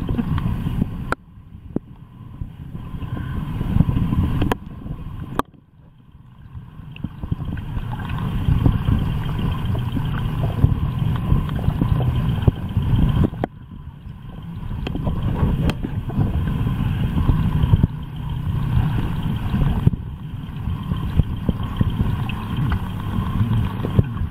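Muffled low rumble and wash of water heard through a camera held underwater in a swimming pool, changing abruptly a few times.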